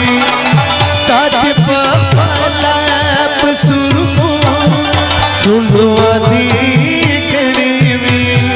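Live Pashto song: a harmonium holds sustained chords under a man's singing voice, while the tabla plays a steady rhythm with deep bass strokes that slide down in pitch.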